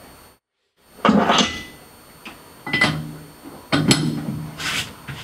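Threads being hand-tapped with a bottoming tap into a part held in a metal-lathe chuck, the tap and chuck turned by hand in short strokes: a series of clunks and creaks about once a second. There is a brief gap of silence near the start.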